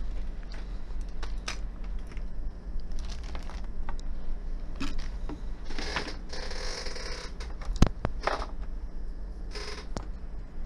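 Hands handling things on a workbench: plastic bags rustling and small clicks and knocks as items are moved around a desoldering station, with one sharp click about eight seconds in. A steady low electrical hum runs underneath.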